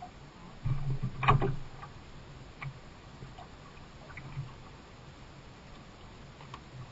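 Water lapping and knocking against the hull of a canoe lying still at sea, with a louder knock and splash about a second in, then scattered faint ticks.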